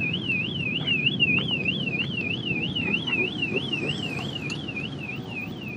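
Vehicle alarm sounding a fast rising-and-falling warble, about four cycles a second, over a low background rumble.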